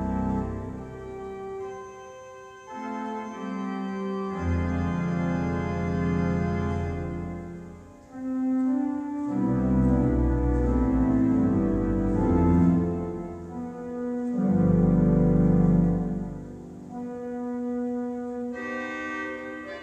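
Three-manual Hook & Hastings pipe organ (opus 1874, about 1900) playing sustained chords that change every second or two. Deep pedal notes come in and drop out several times, and the volume swells to its loudest in the middle and near the end, after a quiet dip.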